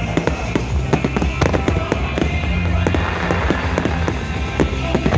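Fireworks going off in rapid, irregular succession, many sharp bangs and crackles a second, over music.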